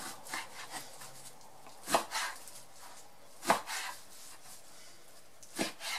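Large kitchen knife cutting pork neck into cubes on a plastic cutting board: quiet slicing strokes and three sharp knocks of the blade striking the board, about a second and a half to two seconds apart.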